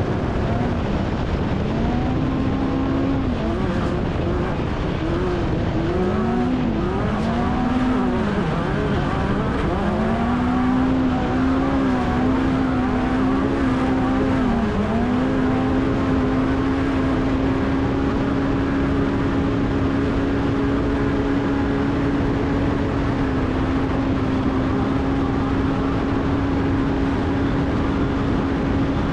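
Off-road race vehicle's engine heard on board during a lap. The revs rise and fall again and again for roughly the first half, then hold steady at high speed for the rest, over a constant rushing noise.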